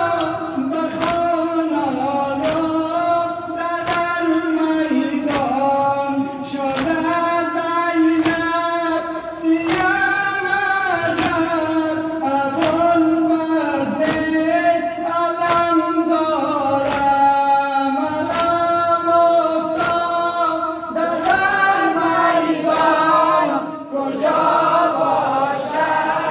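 A crowd of mourners chanting a noha, a Shia lament, together, with the sharp slaps of chest-beating (sineh-zani) keeping a steady beat about once a second.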